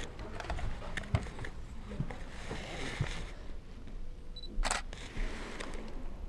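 A digital SLR camera's short high focus beep followed by its shutter click, about four and a half seconds in, amid soft rustling and small handling knocks.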